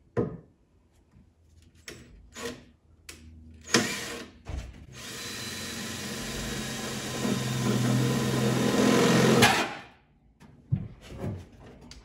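A cordless drill with a 2 1/8-inch hole saw cuts through the sheet-metal wall of a pickup truck bed. It starts with a few short trigger bursts, then runs steadily for about five seconds, growing louder as it cuts, and stops abruptly.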